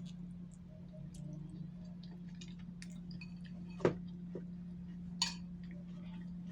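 Small clicks and clinks of eating utensils against a dish, with a sharper click about four seconds in and another about a second later, over a steady low hum.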